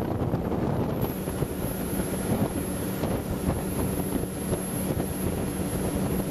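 Motorboat running at speed: a steady engine drone with a low hum, over the rush of wind and water.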